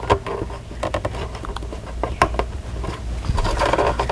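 Cables and a rubber grommet being pushed by hand into a variable frequency drive's terminal compartment: irregular clicks, taps and scraping.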